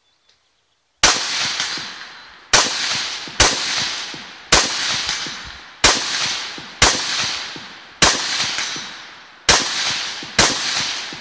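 Rifle fired nine times in a steady string, starting about a second in, shots roughly one to one and a half seconds apart. Each loud crack is followed by about a second of echo across the range.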